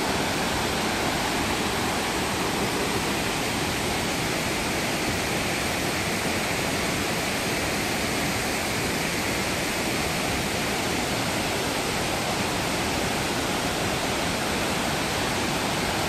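Thi Lo Su waterfall, a tall multi-tiered limestone cascade, pouring into its pools: a steady, even rush of falling water.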